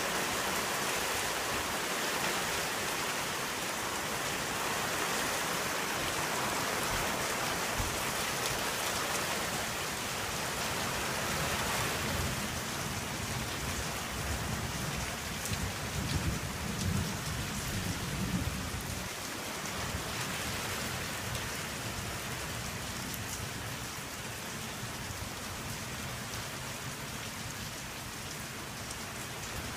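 Heavy rain falling steadily during a thunderstorm. A low rumble of thunder builds about twelve seconds in, is loudest around sixteen to eighteen seconds, and dies away by about nineteen seconds.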